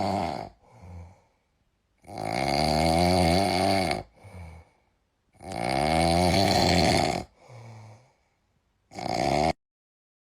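A pet snoring loudly: two long snores of about two seconds each with short, quieter breaths between them, and a shorter snore near the end before the sound cuts off abruptly.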